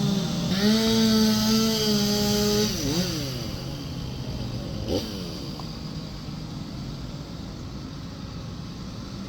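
Chainsaws running at high revs. About three seconds in, the nearest saw drops in pitch and rises again. Several saws then go on revving up and down more faintly.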